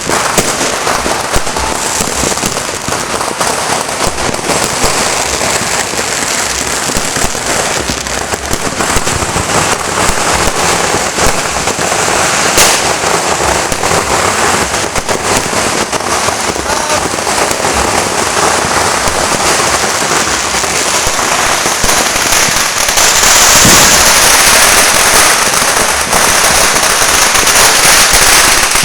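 Dense, unbroken popping and crackling of New Year's fireworks and firecrackers, many going off at once, growing louder in the last third.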